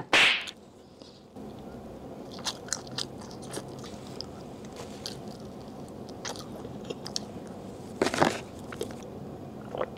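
Close-miked chewing of a soft baked cake, with scattered small clicks of biting and mouth sounds. A short rustle of the paper wrapper comes about eight seconds in.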